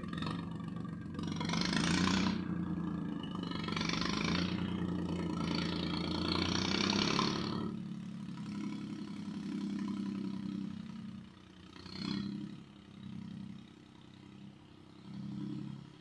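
Small tractor's engine running as it ploughs orchard soil, with three loud noisy bursts over the first half. After that the engine note carries on steadily, then swells and fades every second or two as the tractor moves off.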